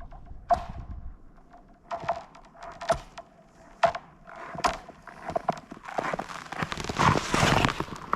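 Nordic skate blades on thin new lake ice about 45 mm thick: a series of sharp cracks and pings as the ice takes each stride, some ringing briefly at one pitch, then a longer scraping rush of blade on ice near the end.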